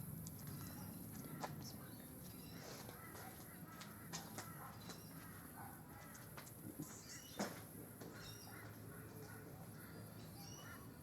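Faint birds chirping and calling, with scattered small clicks over a low steady background hum.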